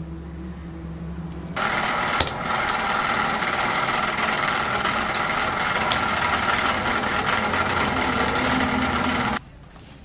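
A low machine hum, then a loud, steady power-tool noise that starts suddenly and cuts off abruptly about eight seconds later, with a few sharp clicks in it.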